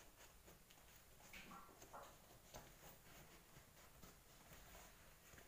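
Near silence, with faint scratching and a few light clicks from hands working at a large cardboard box.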